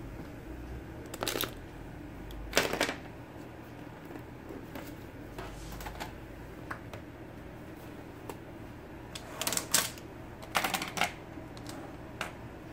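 Plastic pens and markers being picked up and gathered off a wooden desk, clacking against each other and the desktop in several short spells, with lighter taps between.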